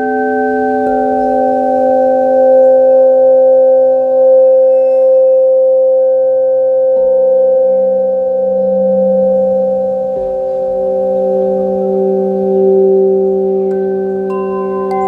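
Singing bowls ringing in long, overlapping tones, with a new tone sounding about a second in, again about seven and ten seconds in, and near the end.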